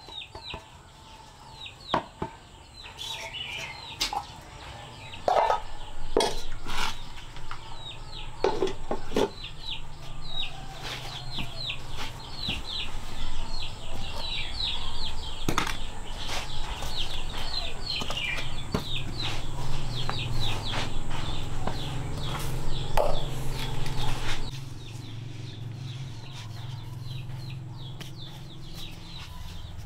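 Chickens calling: many short, high, falling peeps in quick succession, with a few sharp knocks scattered among them. A louder noise underneath drops away about four-fifths of the way through, while the peeping goes on.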